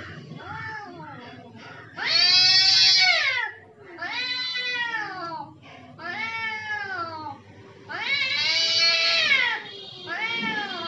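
Cats in a territorial standoff yowling at each other: a run of long, drawn-out calls, each rising and then falling in pitch. The loudest come about two seconds in and again about two-thirds of the way through.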